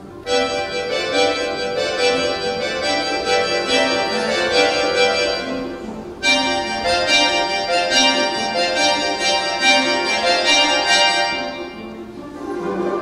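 Bayan (button accordion) playing sustained chords over a folk-instrument orchestra. The passage falls into two phrases, the first breaking off about six seconds in and the second fading near the end.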